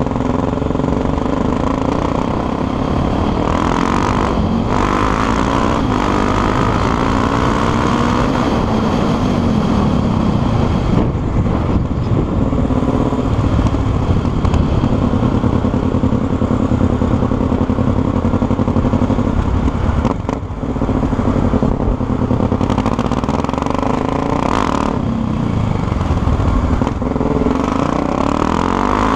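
Honda XR 250 Tornado's single-cylinder four-stroke engine running, its pitch rising and falling repeatedly as the throttle is worked, with brief drops about four times.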